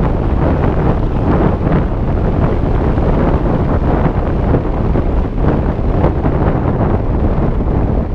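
Airflow buffeting the camera's microphone in paraglider flight: a loud, continuous, gusty rush of wind noise.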